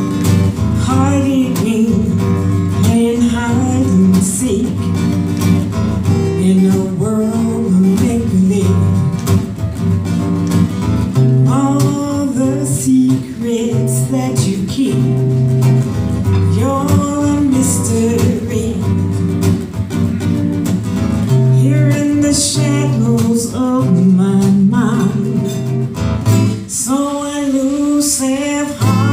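A woman singing a soulful acoustic jazz-blues song, accompanied by a man playing acoustic guitar, performed live.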